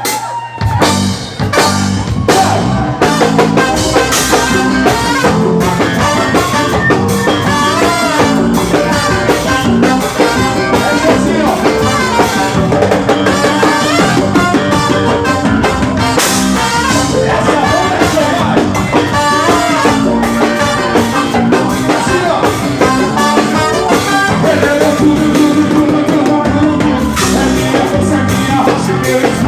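Forró song with singing over a drum kit and band, playing with a steady beat.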